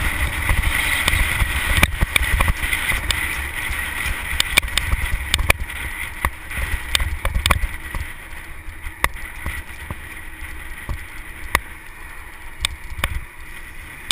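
Wind buffeting a bicycle-mounted microphone at speed, a rough rumble mixed with the road noise of a dump truck just ahead; it gets quieter about halfway through as the truck pulls away. Irregular sharp clicks and rattles are heard throughout.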